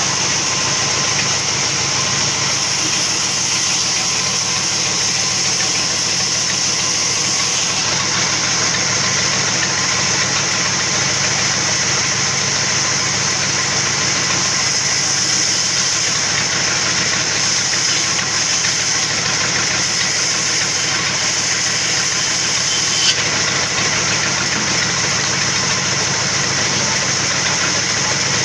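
Sawmill machinery running steadily, an even engine-like drone with a constant high hiss over it. A single sharp click about three-quarters of the way through.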